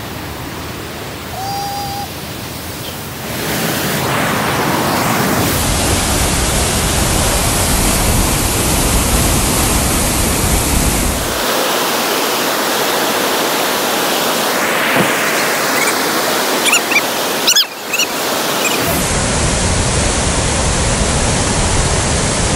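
Rushing white water of river rapids and a small waterfall, a steady roar of noise. It grows louder about three seconds in and shifts abruptly in level and tone a few times.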